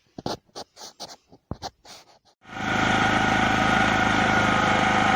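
A few light clicks and knocks, then a small motor starts abruptly about two and a half seconds in and runs loudly and steadily with a constant hum.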